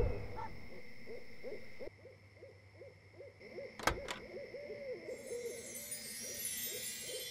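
Two sharp clicks close together about four seconds in, as a charging connector is pushed into the Nissan LEAF's front charge port. Underneath is a faint, rapid series of short rising-and-falling calls, and a high tinkling shimmer comes in over the last couple of seconds.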